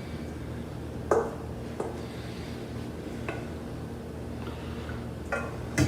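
A few light clinks and knocks of a utensil against a bowl as cooked spaghetti is added to beaten eggs, spread out over several seconds, with a steady low hum beneath.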